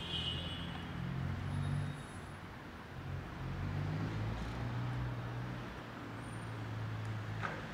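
Steady low rumble of a motor vehicle engine and road traffic, with a brief high chirp at the start and a short click near the end.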